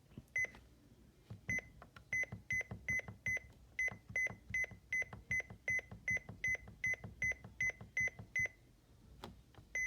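Key-press beeps from a Midland WR300 weather radio as its alarm time is being set. After a single beep, a quick run of about twenty short high beeps follows, two or three a second, each with a faint button click, as the minutes are stepped forward. The run stops, and one more beep comes near the end.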